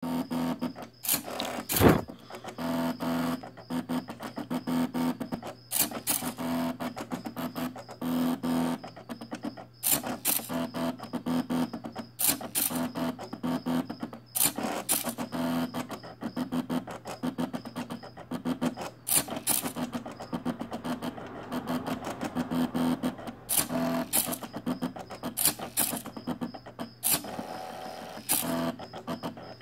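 Stepper motors of an Arduino-driven mini CNC pen plotter whining in short pitched runs as they move the pen across the paper, over a steady hum, with a sharp click every few seconds.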